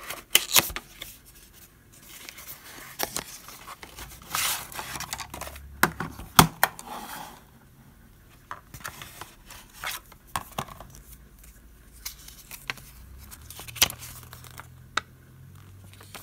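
Cardboard box being opened by hand and a plastic watercolour palette slid out: flaps pulled and rubbed, with sharp clicks and taps, the loudest about six seconds in. Quieter paper rustling follows as a folded leaflet is handled.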